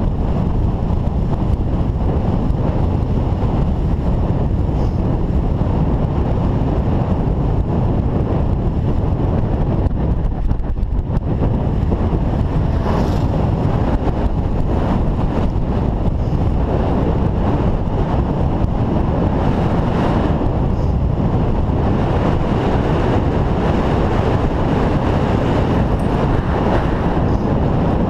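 Wind rushing over a bicycle-mounted GoPro's microphone while riding: a loud, steady low rumble that hardly changes.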